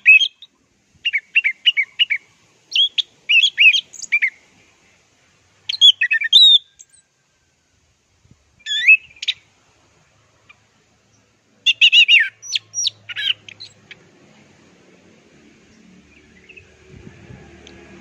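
Orange-headed thrush (anis merah) singing in about six short bursts of quick, high, varied whistled notes separated by pauses of a second or more. The song stops after about fourteen seconds and a faint low background rumble rises near the end.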